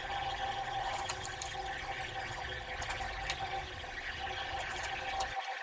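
A chef's knife slicing a tomato, with a few faint taps of the blade on the cutting board, over a steady background hiss with a faint hum.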